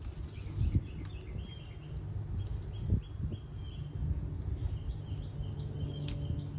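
Small birds chirping again and again over a steady low rumble, with a couple of sharp knocks near the end.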